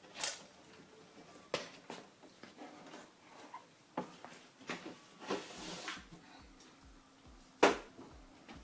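Duct tape being pulled off the roll in short noisy rips, amid scattered knocks and clicks of handling; a sharp knock near the end is the loudest sound.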